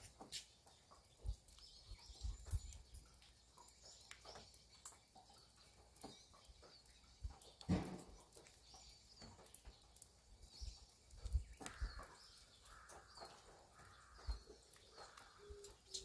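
Faint morning ambience of a Hanwoo beef-cattle farm: small birds chirping over and over, with scattered knocks and low thumps and one louder low sound about eight seconds in.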